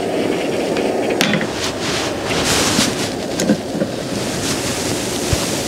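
Butane camping stove burner running with a steady rushing hiss under a hot-sandwich maker, with a few light metal clicks as the pan's hinged halves are handled.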